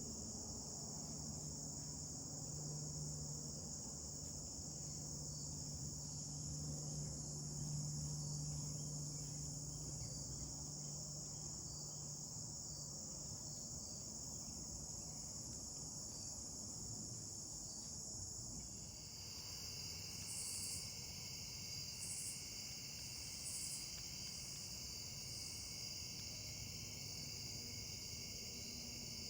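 Crickets and other insects trilling in a steady, faint chorus. About 19 seconds in, a second, lower-pitched insect trill joins, with a few short higher calls over it.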